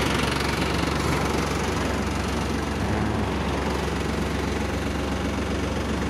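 Kubota GL21 compact tractor's diesel engine running steadily while the tractor is driven.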